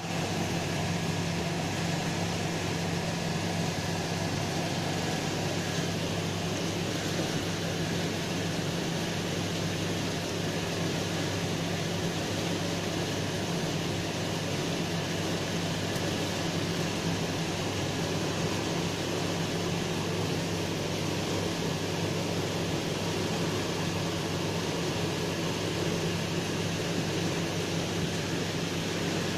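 Steady low hum with a constant hiss.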